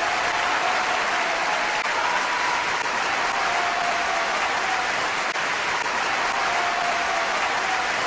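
Large crowd applauding and cheering steadily, with a few voices held at a higher pitch above the clapping.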